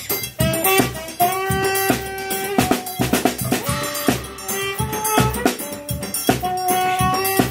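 A small band playing an instrumental tune: a saxophone carries the melody over an accordion, with a snare drum and a hand-held bass drum keeping a steady beat.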